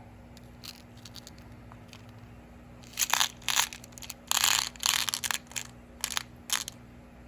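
Plastic packaging crinkling and rustling in a run of short, loud bursts about halfway in, as bead strands are handled.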